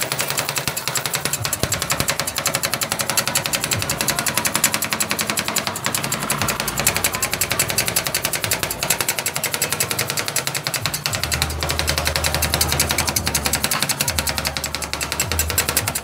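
Two metal spatulas rapidly chopping ice cream on the steel cold plate of a rolled ice cream machine: a fast, continuous metal-on-metal clatter.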